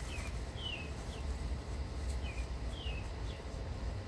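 A songbird calling: short high notes that slide downward, in two quick phrases about two seconds apart, over a steady low rumble.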